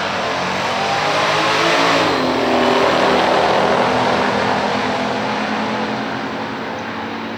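Car engine running hard as it goes past: it grows louder for about two seconds, the pitch drops as it passes, then it fades.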